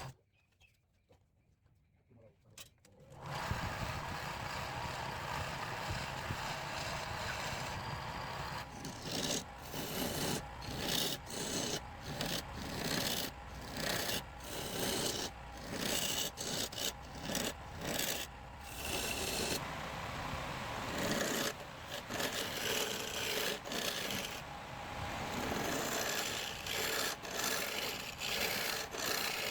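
A hand tool scraping over wood in repeated strokes. The scraping starts as a steady noise about three seconds in and breaks into separate strokes from about eight seconds.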